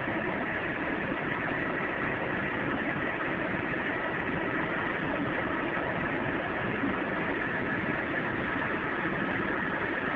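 Electric blower fan running steadily, filling an inflatable bounce house with air.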